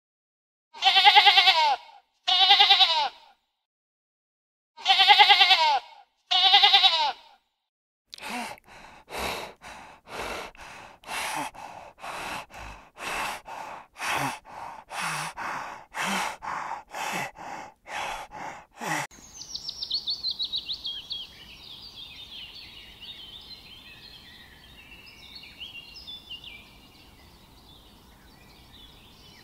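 Sheep bleating: four loud bleats in two pairs. Then a run of about twenty short, evenly spaced animal calls, roughly two a second, that stops abruptly. After that comes a fainter, high, quavering chatter that slowly falls in pitch.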